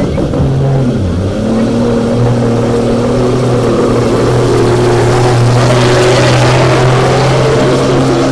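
Diesel semi truck engine running hard under full load while pulling a weight-transfer sled, a steady deep drone that climbs in pitch about a second in and then holds, growing louder toward the middle.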